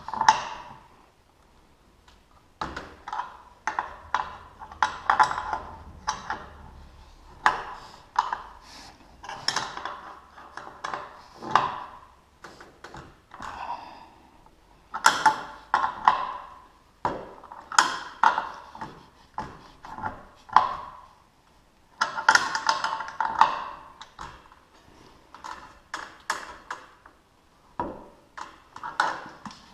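Hand tools working on a garage door opener's drive chain and metal rail: irregular sharp metal clinks and clanks, many with a brief ring.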